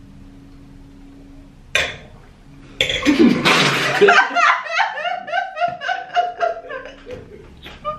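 A brief sputter about two seconds in, then water sprayed out of a mouth as a man bursts out laughing, followed by loud, rapid laughter from him and a woman.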